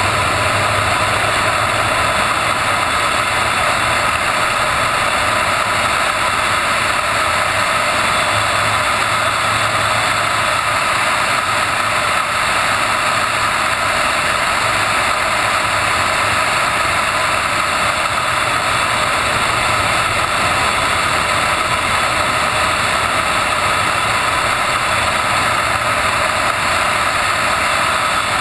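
2013 Subaru BRZ at speed on a track, heard from the car: its flat-four engine under wind and road noise, a steady din with no clear rise or fall in pitch.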